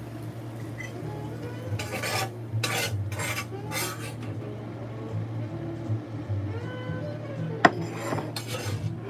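Spatula scraping a cast-iron skillet: a few short rasping strokes, then a sharp clink of metal on the pan and more scraping near the end.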